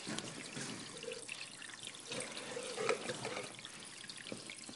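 Faint water trickling and dripping in a small fish tank, with a few light clicks scattered through.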